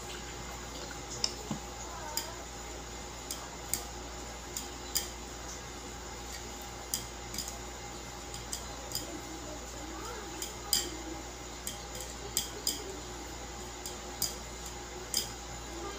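Metal utensils clinking and scraping against a ceramic plate as instant pancit canton noodles are tossed and mixed with their seasoning, with irregular sharp clinks about one every half second to a second over a steady low hum.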